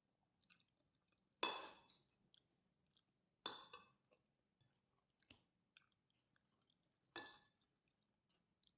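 Someone eating kerupuk crackers with fried rice: three loud crunching bites, the first about a second and a half in and the last near the end, with faint soft clicks of chewing between.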